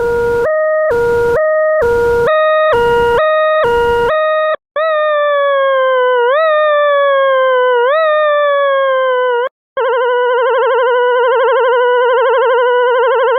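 Electronic siren-style sound effect made of synthesized tones. It starts with a fast two-note high-low alternation broken by bursts of hiss. After a short break comes a slowly falling wail that jumps back up twice, and after another break a warbling, pulsing tone.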